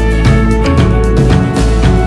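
Background music with a steady beat of about two drum hits a second over held notes and a heavy bass line.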